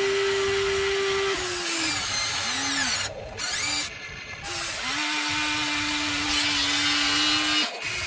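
Huina RC toy excavator's electric motors whining as the boom and bucket move. A steady whine drops in pitch and stops about a second and a half in, a few short whirs follow, then a lower steady whine runs from about five seconds in and stops shortly before the end.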